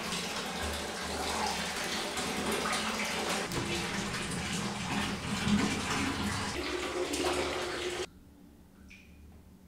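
Water running from a bathtub tap into the tub, a steady rushing splash that cuts off abruptly about eight seconds in. A couple of faint brief ticks follow.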